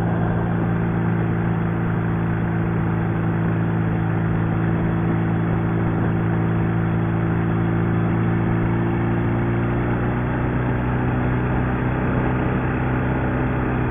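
Sidecar motorcycle's overhead-valve engine running steadily at highway cruising speed, with wind rushing past. The engine note dips slightly about ten seconds in.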